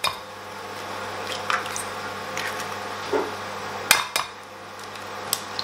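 Eggs being cracked against a Pyrex glass measuring jug and broken open into it, with a couple of sharp taps on the glass about four seconds in.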